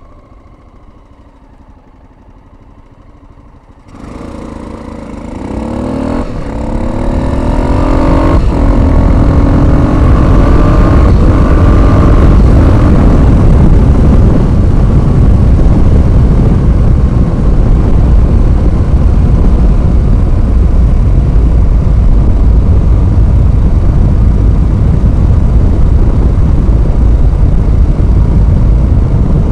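Honda XL600R's 589cc single-cylinder engine ticking over quietly, then revving hard from about four seconds in and rising in pitch through several upshifts. Once up to speed, a steady rush of wind on the microphone dominates over the engine.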